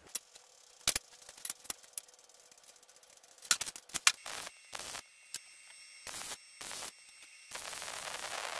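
Wire-feed welder arc crackling on steel tube in several short tack-weld bursts, then a longer run beginning about a second before the end. A few sharp metal clicks and clanks come earlier, as the work is handled.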